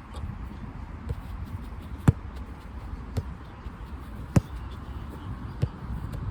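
A football thudding as it is struck and caught in a goalkeeping drill: sharp single thuds roughly once a second, loudest about two seconds in and again past four seconds, over a steady low rumble.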